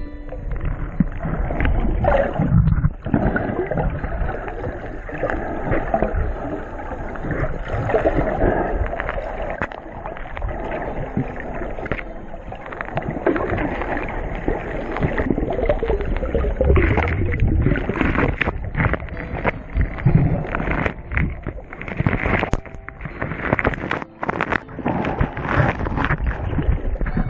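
Water sloshing and splashing against a small boat, with irregular knocks and thumps throughout.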